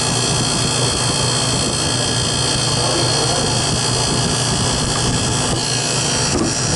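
A beer bottle cooler's refrigeration condensing unit running steadily: the new condenser fan's air noise over the hum of the 1/2 hp compressor, with the system being charged with refrigerant.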